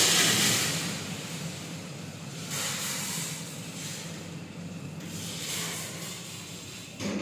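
Inside an OTIS Gen2 service lift car: a steady low hum under hissing rushes of noise, then a short thud just before the end as the car doors close after the door-close sensor is triggered.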